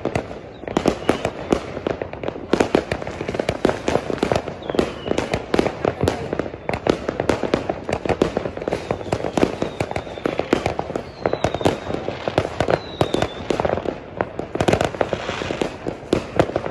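Many fireworks going off at once: a dense, continuous barrage of overlapping bangs and crackling pops, with a few short falling whistles.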